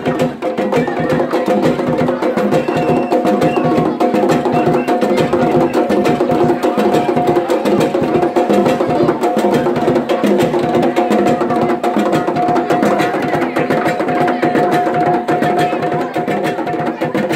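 Kundum dance music: drums and wood-block-like percussion played in a fast, steady rhythm, with sustained notes held over it.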